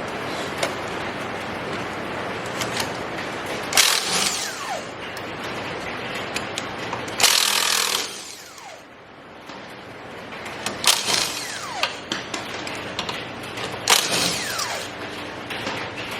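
Hand tools on steel suspension parts: scattered metal knocks and clanks, some with a short falling ring, ratchet-like clicking, and a harsh burst just under a second long about seven seconds in, over a steady hiss of heavy rain.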